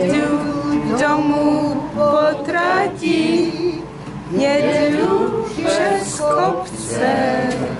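A woman singing a Czech Christmas song, accompanied by two acoustic guitars.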